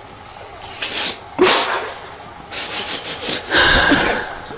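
A man crying into a microphone: sharp sniffs and sobbing breaths, with a short voiced sob near the end.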